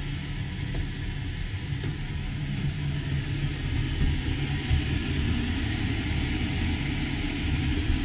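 Mabru 12-volt DC 7,000 BTU marine air conditioner running: a steady low hum under a broad, even airy hiss.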